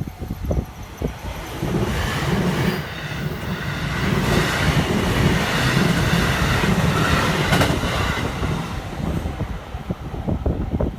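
A JR Hanwa Line electric train passing through a level crossing: the rumble of the train and its wheels on the rails builds about two seconds in, is loudest in the middle, and fades near the end.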